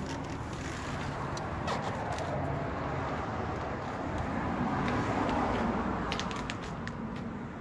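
Steady motor-vehicle rumble that swells about halfway through and then eases off, with a few light clicks and rustles of handling.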